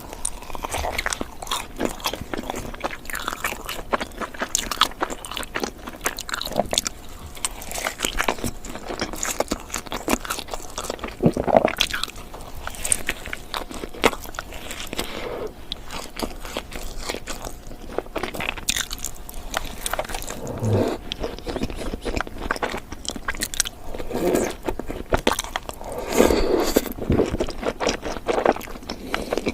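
Close-miked biting and chewing of glazed donuts, many short irregular bites and chews in quick succession.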